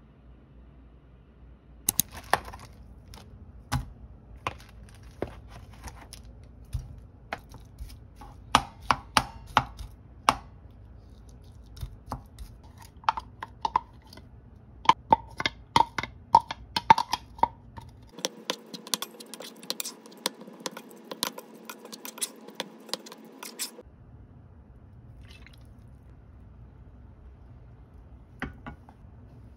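Kitchen utensils clinking and tapping against a bowl and a frying pan, with several short ringing taps. About two-thirds of the way in comes a steady sizzle of ground beef frying in the pan, lasting about six seconds, before the scattered taps resume.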